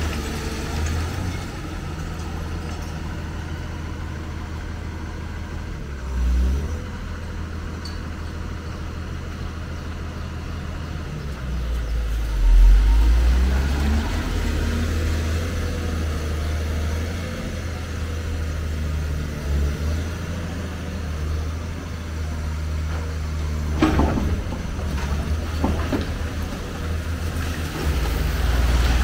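Hyundai crawler excavator running with a continuous low diesel rumble as it breaks into a concrete building. Crumbling concrete and falling debris come with it. Heavy low surges come about six and twelve seconds in, and a sharp crash of falling rubble about five seconds before the end.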